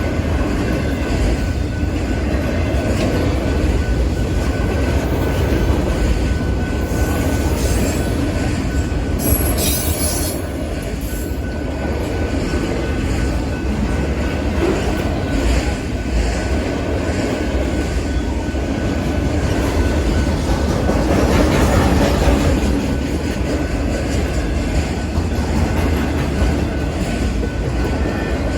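Freight train of autorack cars rolling past at a crossing: a steady rumble of wheels on rail, with a brief high wheel squeal about nine seconds in.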